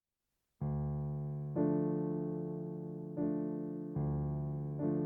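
Soft electric-piano background music: after a short silence, slow sustained chords that come in about every second and fade away between them.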